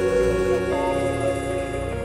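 Background music: slow, sustained chords that shift about every second.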